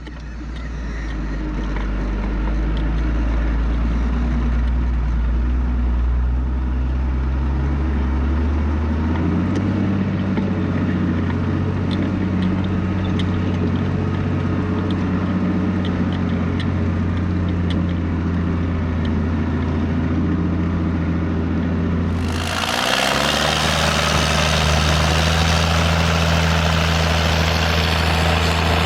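A tractor's diesel engine running steadily while ploughing. Its note shifts about nine seconds in. Near the end it changes to a louder, rougher engine sound with more clatter and hiss.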